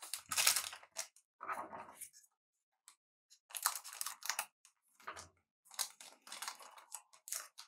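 Crinkling and rustling from handling trading cards and their packaging, in irregular bursts with short gaps between them.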